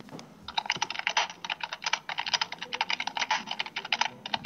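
Fast typing on a computer keyboard: a dense run of keystroke clicks starting about half a second in, with a brief pause around the two-second mark.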